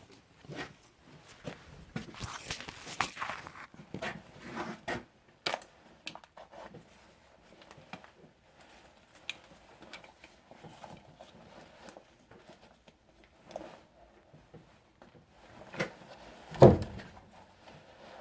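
Handling noises: rustling, scattered clicks and knocks as things are moved about, with one louder thump near the end. The belt sander is not running.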